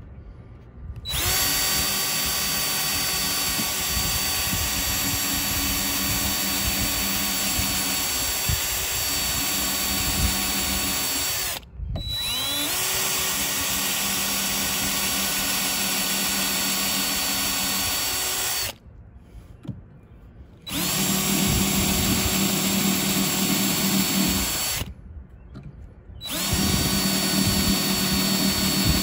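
Cordless drill drilling pilot holes through a door hinge's screw holes into weathered wood: a steady motor whine that runs four times, a long run of about ten seconds and then three shorter ones, with short pauses between and a rising whine as it spins back up.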